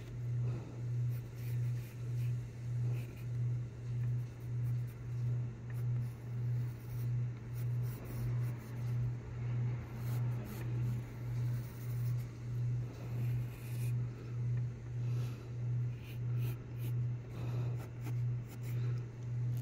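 A low hum throbbing evenly about twice a second, over faint scratching of a graphite pencil sketching and shading on sketchbook paper.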